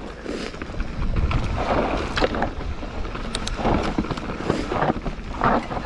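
Wind buffeting the camera microphone and tyres rolling over dirt singletrack at speed, with irregular knocks and rattles from the mountain bike over bumps.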